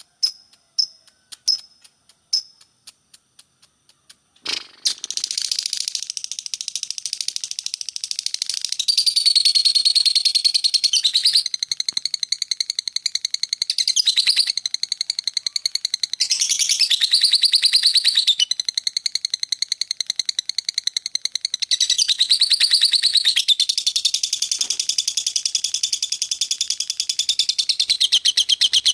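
Lovebird in its long 'ngekek' chattering song: a few separate high chirps, then from about four and a half seconds a very rapid, high trill that runs on without a break, shifting in pitch every second or two.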